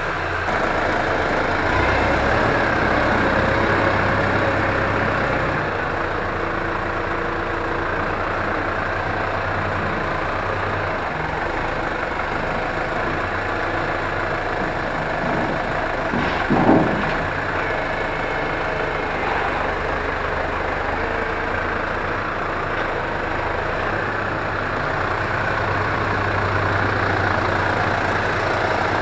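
New Holland tractor's diesel engine running steadily, with a single short louder thump about sixteen seconds in.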